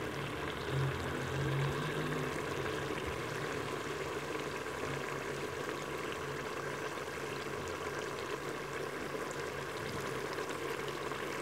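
Chicken curry boiling vigorously with oil in an open pressure cooker pot, a steady bubbling sizzle as the masala is fried down (bhunai).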